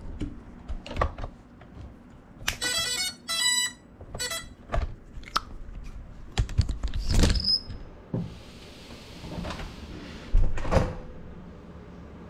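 Handling noise from an FPV quadcopter's onboard camera: knocks, clicks and thumps as the drone is picked up, moved and set down on the floor. A few short electronic beeping tones come about two and a half to four and a half seconds in, and a brief hiss follows the loudest thump.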